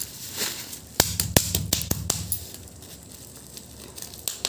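Bubble wrap being popped by hand: about five quick sharp pops between one and two seconds in, with plastic crinkling, then one more pop near the end.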